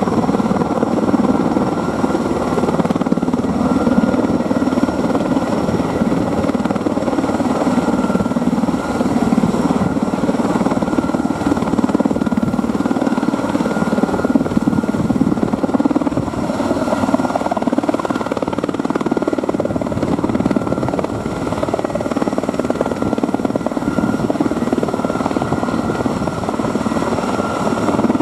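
Erickson Air Crane Sikorsky S-64 Skycrane helicopter running steadily: dense rotor and twin-turbine noise with a steady high whine over it, holding at one level.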